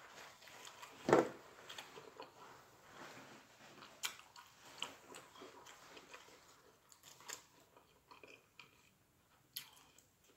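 A person chewing food close to the microphone, with one loud bite-crunch about a second in, then smaller crunches and mouth clicks.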